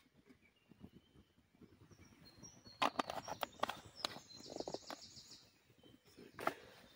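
Birds singing in woodland, with a rapid high trill about four seconds in. Several sharp snaps or cracks come around three seconds in and again near the end.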